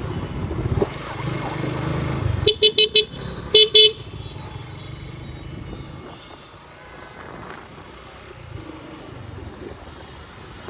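Vehicle horn tooting in quick short beeps, four in a rapid run and then two more, over the rumble of a motorcycle riding in traffic.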